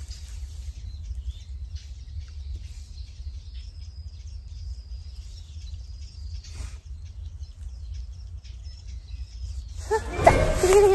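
Quiet pond-side ambience: a low wind rumble with faint, scattered bird chirps. Near the end a much louder burst of pitched sound breaks in.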